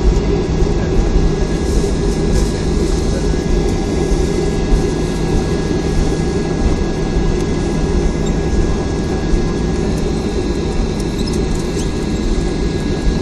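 Cabin noise inside a Boeing 737-500 rolling on the runway after touchdown: a steady low rumble of engines and wheels, with a thin steady whine above it.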